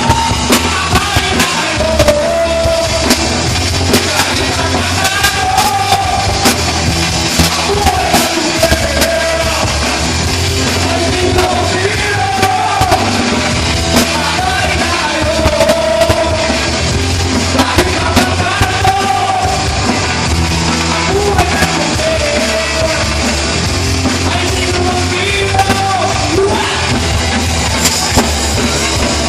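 A band's rock song: a singer over drums and bass with a steady beat.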